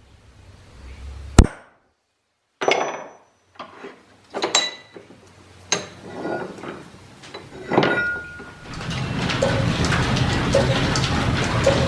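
Metal parts knocked and set down, about seven separate clinks, several leaving a short metallic ring. About nine seconds in, line-shaft-driven shop machinery takes over, running steadily with a fast ticking.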